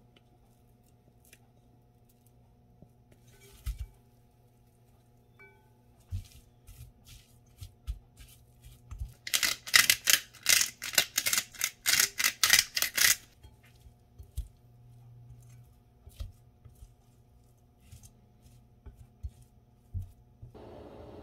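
Silicone spatula working shredded raw potato in a glass bowl: scattered taps and scrapes against the glass, with a dense run of loud, rhythmic rustling strokes for about four seconds near the middle.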